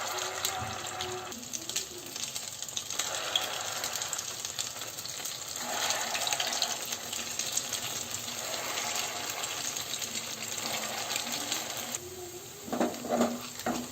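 Potato-stuffed bread rolls frying in hot oil: a steady sizzle with fine crackling.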